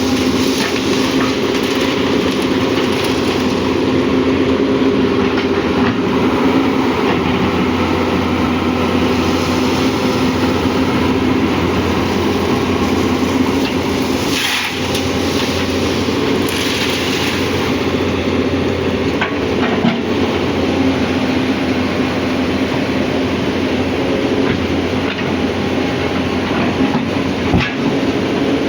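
Hyundai excavator's diesel engine running steadily under load, with clatter and rattle over it and a short hiss about halfway through.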